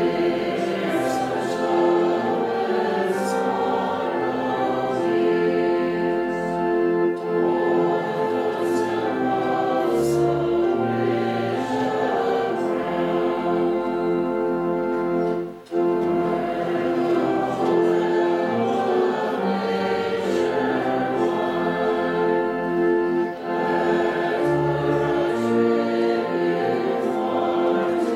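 Congregation singing a hymn with organ accompaniment in long held chords, with a brief break between lines about halfway through.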